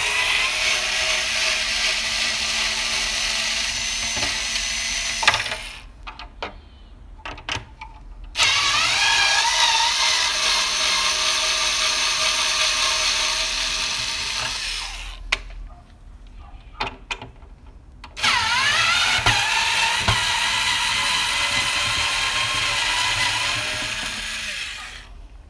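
Electric drill-driver backing out the screws that hold a CRT television's picture tube to its cabinet. It runs three times, several seconds each, and the whine shifts in pitch as the second and third runs begin. Short clicks and knocks fall between the runs.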